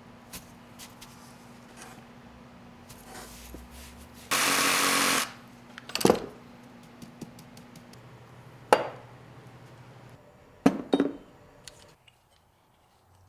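Workshop sounds over a steady low hum: a loud burst of hissing noise lasting about a second, then several sharp knocks with short ringing, the last two close together.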